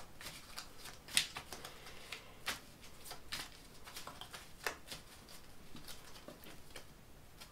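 A tarot deck being shuffled overhand, packets of cards dropped from one hand into the other: irregular light slaps and rustles of card on card, with a few sharper snaps.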